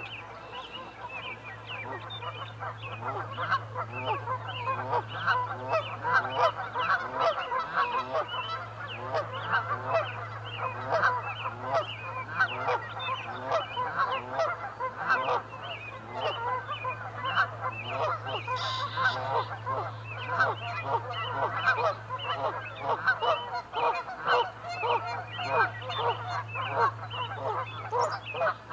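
A large flock of geese honking continuously, with many overlapping calls. A steady low hum runs underneath.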